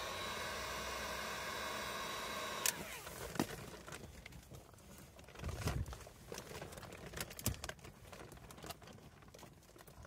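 Heat gun blowing with a steady whir, switched off with a click about two and a half seconds in. Then scattered clicks, rubs and a dull knock as hands grip and work the clear plastic flow-switch tee off the softened flexible pipe.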